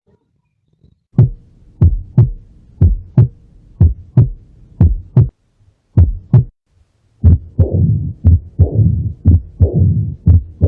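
Recorded human heartbeat: a steady lub-dub about once a second, then, after a brief break, a faster, louder beat with a rushing sound between the beats.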